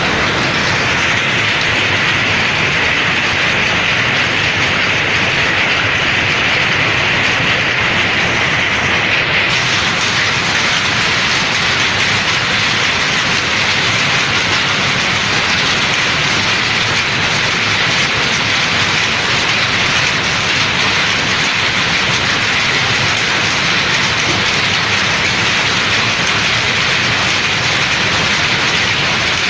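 Textile mill machinery running: a steady, unbroken mechanical din that is dense and even throughout.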